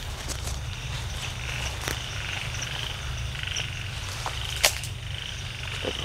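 Frogs calling at night, a chorus of repeated calls about once a second with small higher chirps, over a steady low rumble. A single sharp click about four and a half seconds in.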